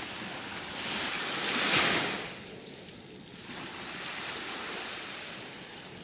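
Small waves washing onto the beach, one wave surging up loudest a little before two seconds in and fading, then a gentler wash.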